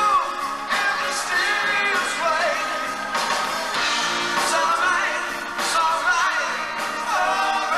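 Live rock band playing with a lead vocalist singing over drums and the full band, heard from among the audience.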